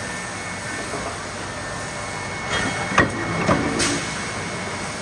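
Steady machinery noise on a forging shop floor. About three seconds in comes a sharp metallic bang, with a few shorter clanks around it.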